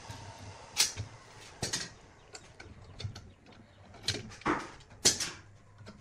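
Steel bar clamps being loosened and taken off a glued stack of wooden rings: scattered sharp metal clicks and clacks as the screws are turned and the sliding jaws knock along the bars, about five loud ones among smaller ticks.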